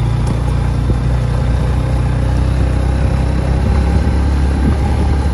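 Motorcycle engine running steadily while the bike rides along a loose gravel track.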